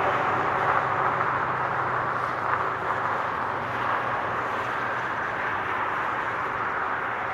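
Highway traffic: a continuous wash of tyre and engine noise from passing vehicles, with a low engine drone that fades about halfway through.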